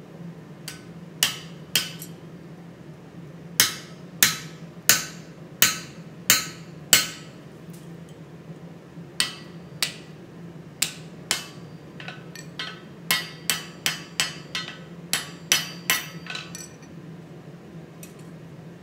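Hand hammer striking a punch held on a glowing steel billet on an anvil, punching the eye of a hammer head: about two dozen sharp metallic blows, first a slow run about two-thirds of a second apart, then a quicker run that stops shortly before the end. A steady low hum runs underneath.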